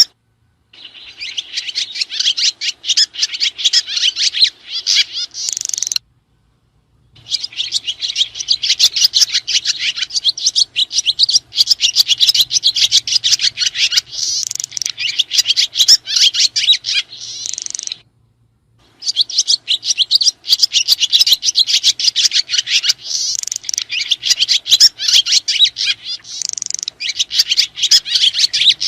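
A flock of sriti swiftlets twittering: dense, rapid, overlapping high chirps. The sound cuts out completely twice, at about six and eighteen seconds in, then resumes.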